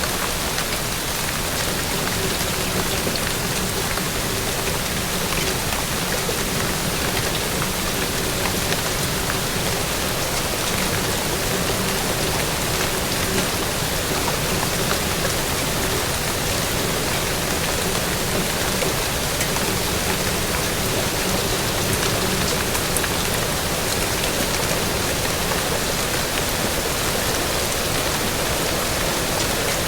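Steady, dense rainfall: a constant hiss of rain pattering on a surface, with fine individual drop sounds. A faint low steady hum lies underneath.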